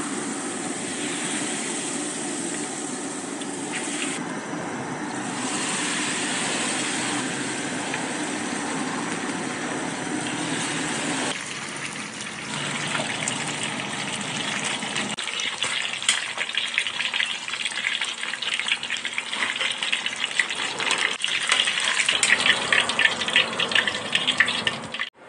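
Battered chicken deep-frying in a wok of hot oil: a steady dense sizzle that turns into busier, louder crackling and popping about halfway through.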